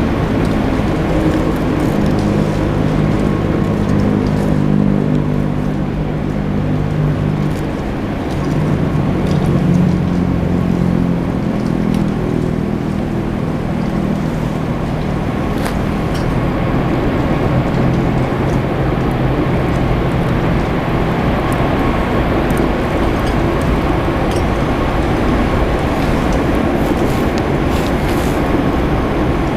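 An engine running steadily, its low pitch shifting up and down for a few seconds near the middle, over a constant rushing noise.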